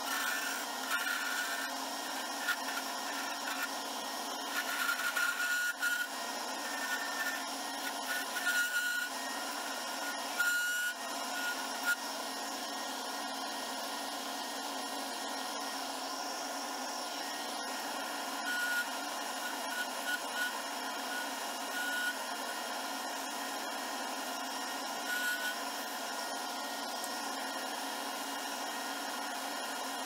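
Wood lathe spinning an Alumilite resin pen blank while a turning tool cuts it, peeling off plastic shavings. The cutting noise is uneven with louder spurts for about the first twelve seconds, then settles to a steadier sound.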